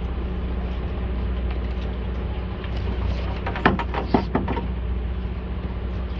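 Boat engine running steadily with a low hum under wind and sea noise. A quick cluster of sharp clicks and knocks comes a little past halfway.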